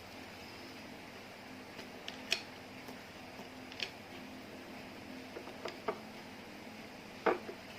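Slime being pressed and worked by hand, giving scattered short sticky clicks and pops, about six in all, over a faint steady hum.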